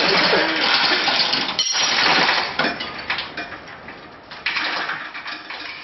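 Metal-on-metal rattling and clinking from the chain hoist and engine hardware while a Toyota 4A-G engine is being lifted out of the car. Dense rattling for the first couple of seconds, then scattered sharp clinks, with one louder clank about four and a half seconds in.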